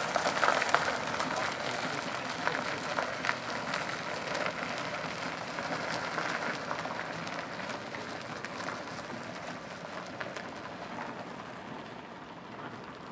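Golf cart driving away: a steady crackling hiss from its tyres on the ground, fading gradually as it recedes.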